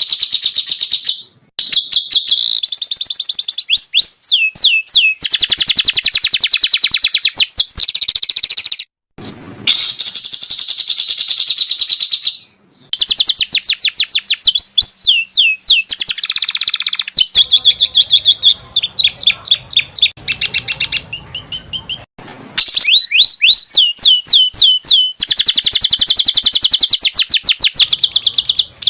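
Songbird song recorded as masteran, the training recordings played to cage birds: loud, fast trills and runs of quick downward-sweeping whistled notes, broken by several abrupt cut-offs.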